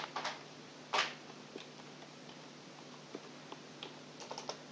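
Faint, scattered clicks of a computer keyboard being typed on, with a few quick keystrokes close together near the end, over a faint steady hum.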